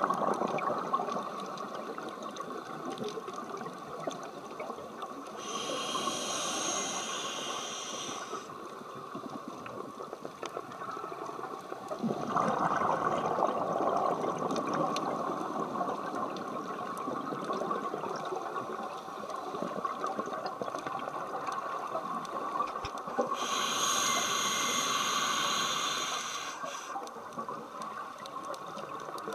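Scuba breathing recorded underwater: a steady rush of water and bubble noise, with a hissing regulator breath about six seconds in and another near the end.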